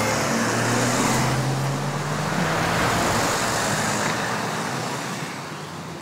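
A road vehicle driving past close by: a steady engine hum under a rush of road noise that fades away over the last second or two.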